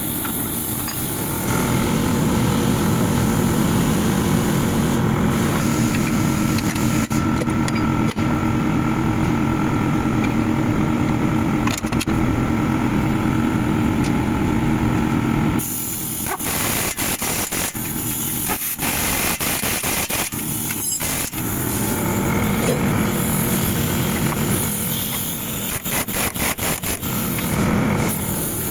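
Chevrolet Malibu running, with a steady engine and road noise. Through the second half come many sharp knocks from the front suspension, the noise that the title puts down to a faulty front shock absorber.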